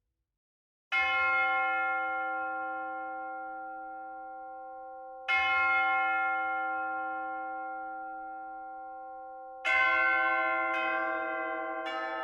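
Church bells ringing: a single bell struck twice, about four seconds apart, each stroke ringing on and slowly dying away. Near the end other bells join, striking different notes in quicker succession.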